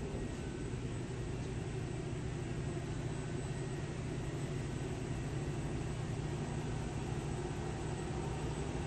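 Steady machinery hum of an industrial shop floor, even and unbroken, with a low drone and a hiss above it.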